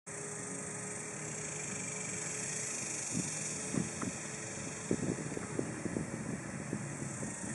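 Steady low hum and hiss, with a run of short, irregular crunching clicks from about three seconds in as a deer chews a piece of tortilla.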